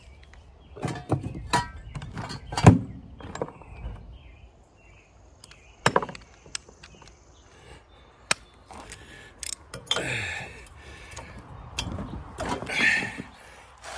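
Metal hand tools clinking and knocking on an air-cooled engine's cylinder head as a socket wrench is fitted to the head nuts and worked to loosen them, with a few sharp knocks early on and short scraping, rasping sounds near the end.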